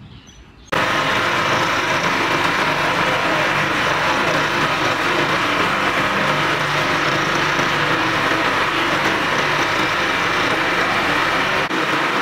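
Large industrial block ice machine running: a loud, steady mechanical din that starts abruptly about a second in, with a brief dip near the end.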